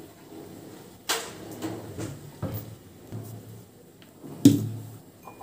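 Kitchen clatter: several separate knocks and clunks of things being handled, set down and shut, the loudest about four and a half seconds in.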